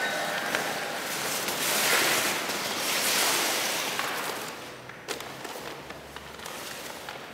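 Paper costume crinkling and rustling with a dancer's movements: a rushing noise that swells, then fades, with a few sharp crackles about five seconds in.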